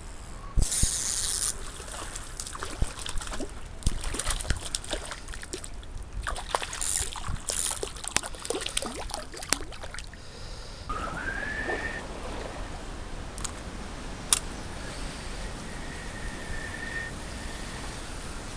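Shallow stream running over stones, overlaid for the first ten seconds or so by rustling and crackling from movement along the brushy bank and handling of the camera. After that the water runs on steadily, with a short rising whistle about eleven seconds in and a sharp click a few seconds later.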